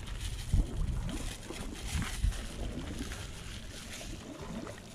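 Wind buffeting the microphone in low rumbling gusts, with the light crinkle of a thin plastic bag being handled.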